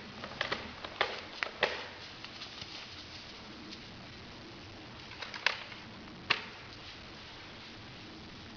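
A few sharp, irregular clicks and snaps over a steady hiss: a quick cluster of about five in the first two seconds, then two more a little under a second apart in the second half.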